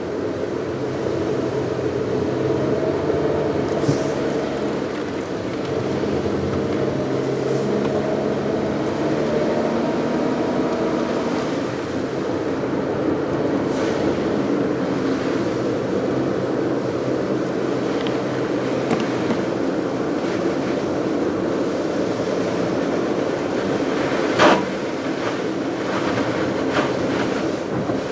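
A car driving along a road, its engine humming steadily and shifting pitch slowly, with continuous tyre and road noise. There are a few light knocks and one sharp knock near the end.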